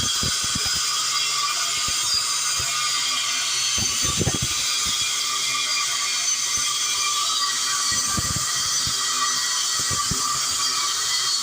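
A power tool cutting steel bracket stock, running steadily with a continuous high-pitched metal-cutting noise and a few faint knocks underneath.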